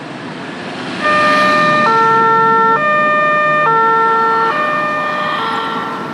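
Two-tone hi-lo emergency-vehicle siren, switching between a higher and a lower note just under once a second. It starts about a second in and fades near the end, over a steady background noise.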